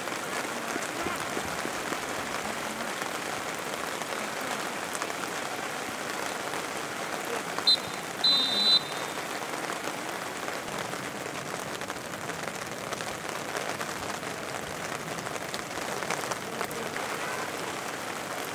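Steady hiss of rain falling on a football pitch. About eight seconds in, a referee's whistle sounds a short pip and then a longer blast, the loudest sound here.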